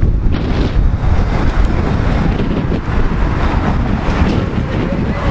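Wind buffeting the camera's microphone: a loud, steady rumble.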